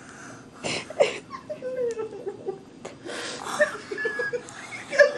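A toddler's breathy giggles and short wavering vocal sounds, broken by quick breaths.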